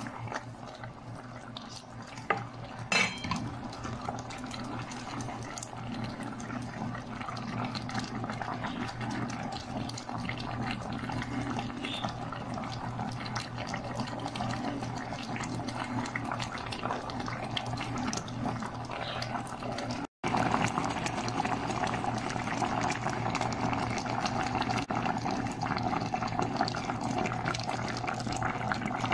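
Fish-head stew in coconut milk bubbling in a pot on the stove, with one sharp knock about three seconds in. The sound cuts out briefly about two-thirds of the way through, and the bubbling is louder after it.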